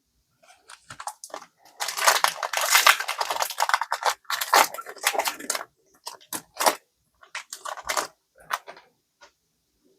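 Foil wrapper of a Pokémon card booster pack being torn open, a continuous crackling tear for about two seconds, followed by a string of short crinkles and rustles of the wrapper.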